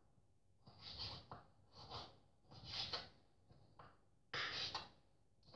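Kitchen knife slicing raw pork rib meat on a wooden cutting board: about five short scraping strokes, with a couple of light taps of the blade on the board.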